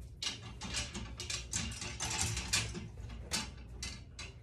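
A string of short, irregular rustles and clicks, loudest around the middle, over a steady low hum.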